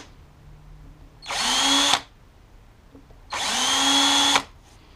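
Power drill with a small bit run in two short bursts, each spinning up in pitch and then stopping, as it drills out the soft aluminium peening that stakes a 1975 Honda CB750 rear wheel bearing retainer in place.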